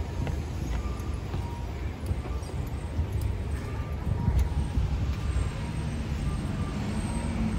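City street traffic noise, a steady low rumble, with a few faint short high tones now and then.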